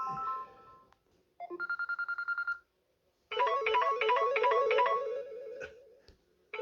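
Samsung Galaxy A71 ringtones played back to back: the end of one melody, then about a second and a half in a short burst of rapid pulsing beeps, about ten a second, then after a short gap a plucked, repeating melody lasting about two and a half seconds, and the start of another tone at the very end.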